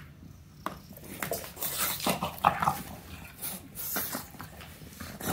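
English bulldog chewing and mouthing a black rubber chew toy, making an irregular run of noisy dog sounds and scuffles from about one second in to near the end.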